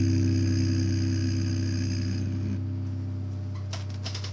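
Last acoustic guitar chord ringing out and slowly fading, its higher notes dying away about halfway through, with a few faint clicks near the end.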